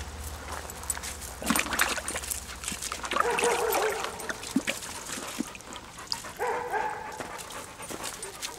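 A Doberman messily lapping and splashing water from a plastic wheelbarrow: a run of wet slaps and splashes. Two short whines sound in among them, about three seconds in and again past six seconds.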